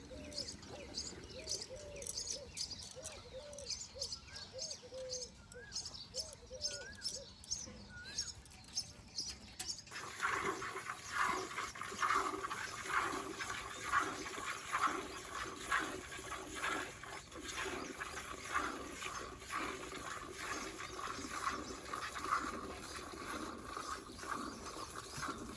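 Birds chirping with short repeated calls for about the first ten seconds. The sound then changes abruptly to a louder, uneven splashing of water.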